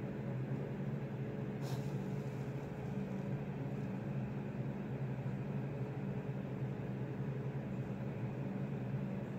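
Steady low background hum with a thin steady tone above it, and one short click nearly two seconds in.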